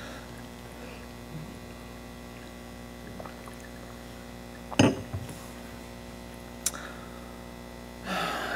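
Steady electrical hum with a glass of water being handled at a lectern: a sharp knock about five seconds in as the glass is set down, a lighter tap a couple of seconds later, and a soft breathy sound near the end.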